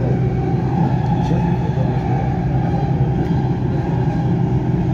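Dubai Metro train running at speed, heard from inside the carriage: a steady rumble and hum of the wheels on the rails and the train's motors.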